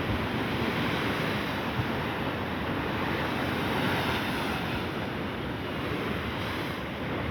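Sea waves breaking and washing on the shore, a steady rushing surf, with wind buffeting the microphone.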